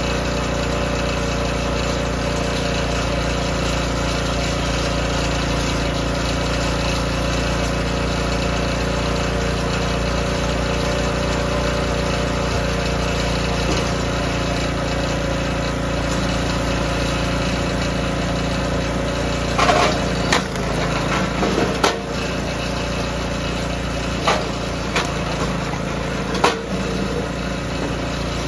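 DR K28 Pro log splitter's small gas engine running steadily. About two-thirds of the way through come a series of sharp knocks and cracks as a hardwood log is split on the machine and the pieces are handled.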